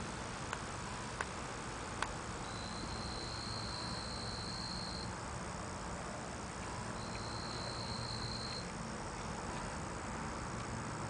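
Two long, high, even trills from a small animal, the first lasting about two and a half seconds and the second about a second and a half, over a steady outdoor hiss. A few faint clicks come in the first couple of seconds.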